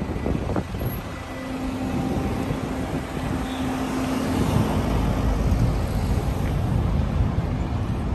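Street traffic: cars driving past close by, engines and tyres running on the road, with a steady engine hum for a few seconds near the start.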